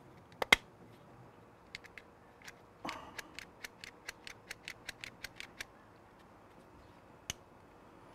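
Small sharp plastic clicks as an electric pressure washer's plastic switch parts are handled and fitted back together: two loud clicks near the start, a quick even run of clicks, about five a second, for a couple of seconds midway, and one more click near the end.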